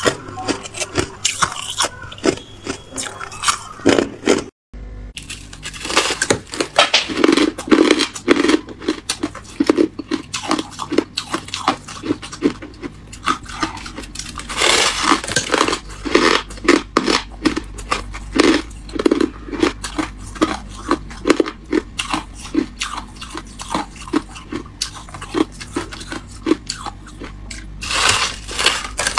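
A spoon scraping and crushing through freezer frost and ice cubes, then, after a brief break about five seconds in, close-up biting and chewing of a thick slab of compacted freezer frost: a long run of sharp, crackly crunches.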